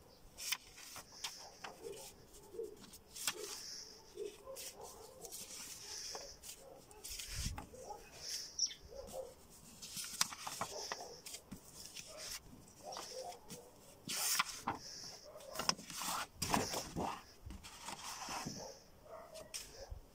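Paper sheets rustling and crackling as a stack of drawings is leafed through by hand, with scattered small clicks and knocks of handling.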